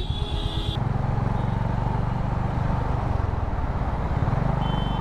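Honda CB350RS motorcycle's single-cylinder engine running steadily on the move. A vehicle horn sounds for under a second at the start.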